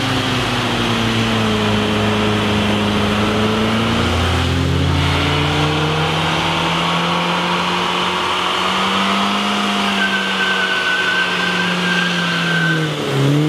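Car engine running as the car drives. Its note drops about four seconds in, climbs again later on, and falls away near the end.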